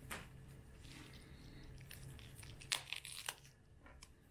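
Faint, soft tearing of a ripe cherimoya's skin and flesh as it is pulled apart by hand, with a few sharper crackles about three seconds in.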